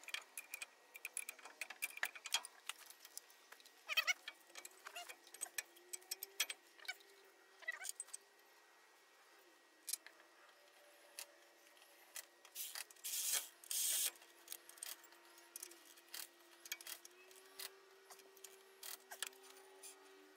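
Irregular small metallic clicks and clinks of hand work on a truck's front brake rotor and wheel hub, with a couple of louder, harsher bursts about two-thirds of the way through.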